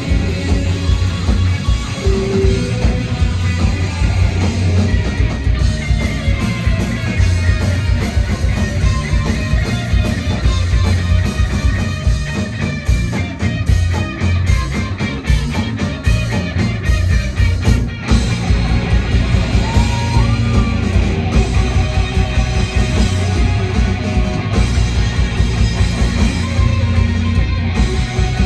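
Live rock band playing loudly through the club PA: drum kit, electric guitars and bass in a full-band section, with vocals at times.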